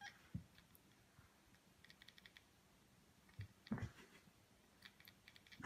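Domestic cat chattering: faint, quick clicking chatter in several short bursts, with one louder click about two thirds of the way through.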